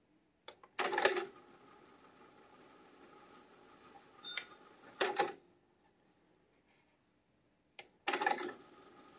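Teac AD-RW900 cassette deck transport: a button click and mechanism clunk about a second in as fast-forward engages, then a faint steady whir of tape winding fast. Another clunk about five seconds in, after which the whir stops. Near the end a click and clunk as rewind engages, and the whir starts again.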